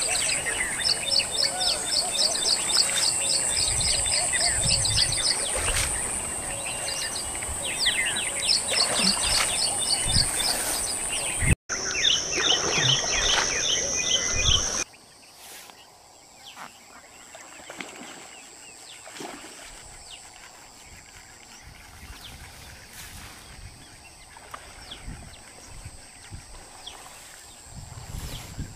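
Birds chirping in quick repeated runs over a steady high-pitched insect drone. About halfway through, the sound cuts abruptly to a much quieter background where the faint drone goes on.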